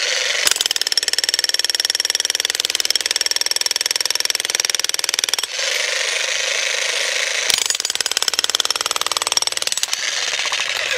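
Electric demolition hammer (VEVOR 3500 W) with a bull-point chisel, rapidly hammering into a concrete slab. It strikes in two long runs with a short let-up a little past the middle.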